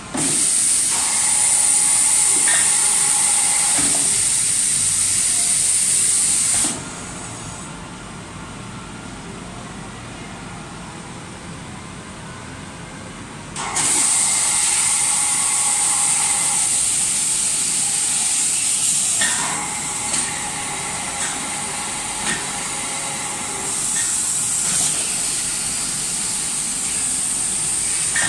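Csepel MC 1250 CNC horizontal machining centre running through an automatic tool change: a loud, steady hiss with faint steady tones beneath it. The hiss stops for about seven seconds partway through, then starts again.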